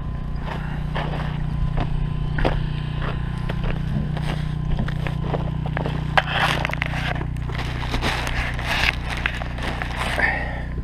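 Footsteps walking up to a camper trailer, then the handling and scraping of its entry door and latch as it is opened, over a steady low hum.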